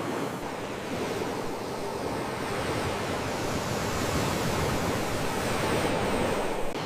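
Sea waves washing in, a steady rush of surf that swells gradually over several seconds and drops away abruptly near the end.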